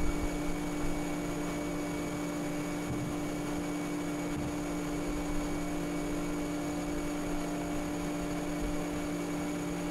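Planer-thicknesser with its dust extraction running idle, no board in the cut: a steady machine hum with two constant low tones.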